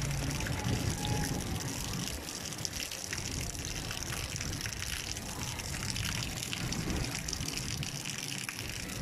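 Rainwater running across a flooded lane: a steady wash of flowing water, with many small ticks of drops hitting the surface.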